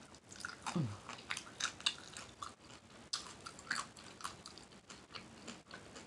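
A person chewing a mouthful of food close to the microphone with wet mouth smacking: a run of short, irregular smacks and clicks. There is a brief falling "mm" hum about a second in.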